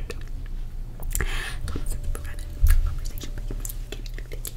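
Inaudible whispering with wet mouth clicks, right up against a microphone. Just after a second in there is a breathy hiss, and a little past the middle a short low thump on the microphone, the loudest moment.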